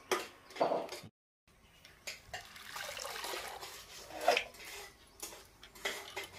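Crisp snapping and tearing as the tough outer bracts are peeled off a banana flower, cut off short after about a second. Then mustard greens being washed in a pot of water: water splashing and dripping as handfuls of leaves are lifted out and dropped into a steel bowl, with a louder splash about four seconds in.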